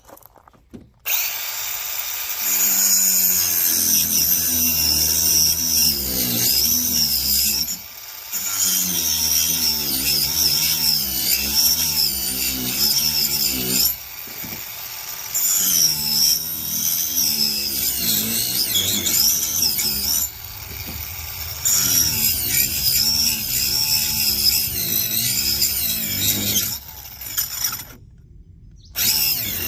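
Reloive 16 V cordless mini angle grinder with a wood-cutting blade cutting into wood. The motor whine rises and falls in pitch as it bogs under load and eases off several times. Near the end it cuts out for a couple of seconds, then starts up again; the owner says the small motor shuts down briefly when it overheats, though he can't tell whether that was him or the battery.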